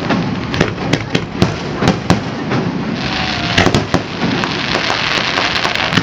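Aerial fireworks display: a rapid, unbroken run of sharp bangs and pops from bursting shells over dense crackling, with a tight cluster of bangs a little past the middle.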